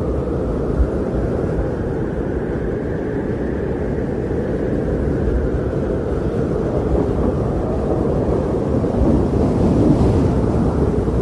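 Strong blizzard wind blowing steadily, a deep rushing noise with no distinct events, swelling a little near the end.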